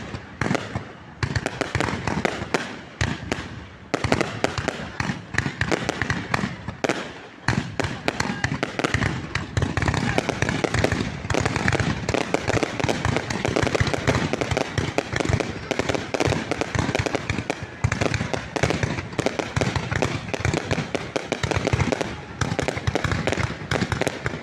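Fireworks and firecrackers going off in a dense, continuous barrage: rapid, overlapping sharp bangs and crackles with no pause.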